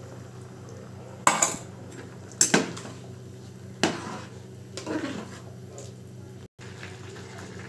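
Metal ladle clinking against the side of a metal cooking pot while stirring simmering khichdi: about five sharp knocks at uneven intervals over a faint steady hum.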